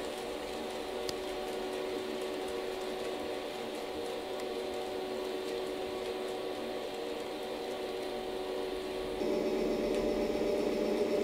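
HO-scale model train running on the layout: a steady hum with several held tones and faint scattered ticks. About nine seconds in, the hum turns louder and fuller.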